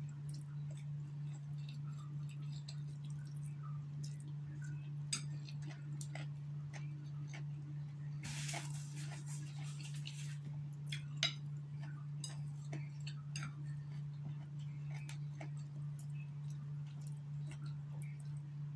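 Close-up eating sounds: chewing instant noodles and the scattered clicks and taps of plastic chopsticks against a plate, over a steady low hum. About eight seconds in there is a two-second rustling burst of noise.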